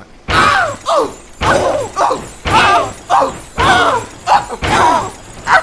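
A voice screaming "ah!" over and over, about six loud yells roughly a second apart.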